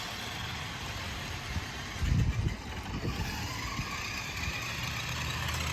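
Remote-control Jurassic Park Jeep toy car's small electric motor whining as it drives, over steady outdoor noise, with a brief low rumble about two seconds in.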